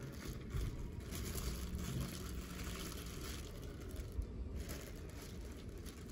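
Plastic bread bag crinkling in short rustling spells as hands untwist its tie and open it, over a low steady background rumble.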